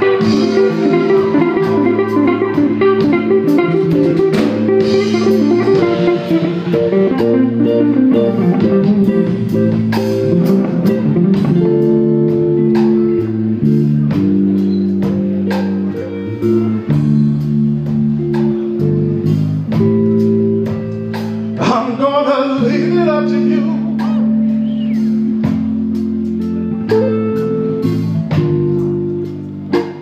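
Live blues band playing, with guitar over a walking bass line and drums.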